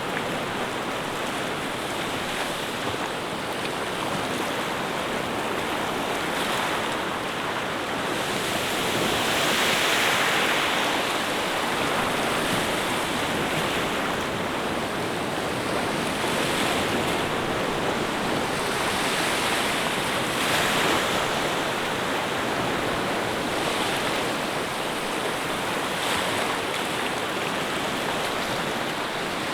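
A continuous rush of water, swelling louder now and then, most strongly about ten seconds in.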